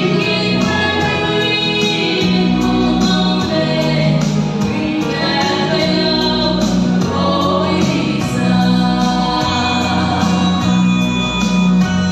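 Two women singing a duet into microphones, amplified through a PA, over an instrumental accompaniment with a steady bass line.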